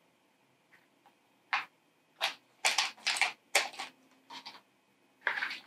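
Handling noise as small board-game tokens and pieces are picked up and set down in a cardboard box insert: a series of short, irregular clicks and rustles.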